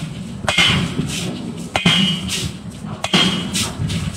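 Heavy metal-on-metal strikes, three of them about a second and a quarter apart, each with a short ring, as a punch is driven through a red-hot steel forging blank to pierce it.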